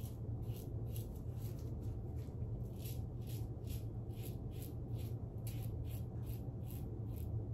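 Carbon CX safety razor with a Nacet blade scraping through lathered stubble in short, even strokes, about three a second, over a steady low hum.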